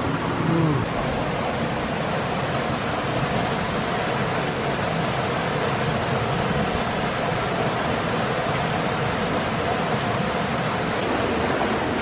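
Mountain stream water running over rocks, a steady, even rushing.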